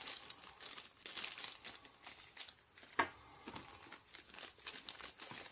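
Small plastic zip-lock bags crinkling faintly as they are handled, with one sharp tap about three seconds in.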